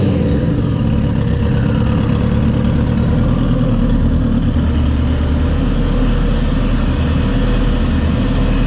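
Turbocharged Kawasaki ZX-14 inline-four engine settling to a steady idle just after a rev.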